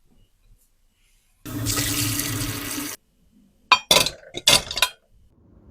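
A water tap running hard into a sink for about a second and a half, then shut off abruptly. This is followed by four or five short, sharp noises.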